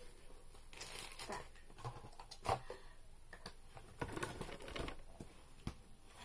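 Rustling and handling noises close to the microphone, with a few light knocks and clicks, the loudest about two and a half seconds in.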